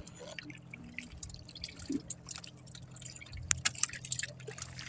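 Seawater dripping and lapping at the side of a small outrigger boat, with light scattered splashes and drips as a fishing handline is pulled up out of the water.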